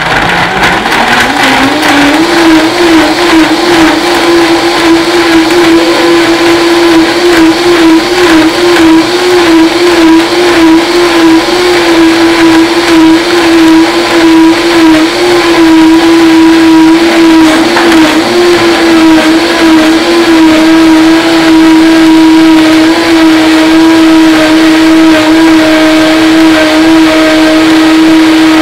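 High-speed countertop blender blending a sauce: the motor spins up over about the first two seconds, then runs steadily at full speed. Its pitch wavers slightly at first and holds steadier in the second half.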